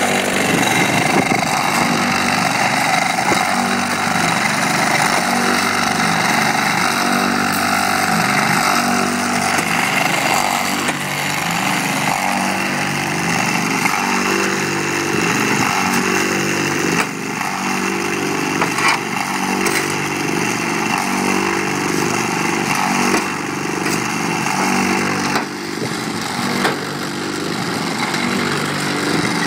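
Precast concrete lintel-making machine running, its vibrator motors droning steadily as it forms concrete on the casting bed. A few sharp knocks come through in the second half.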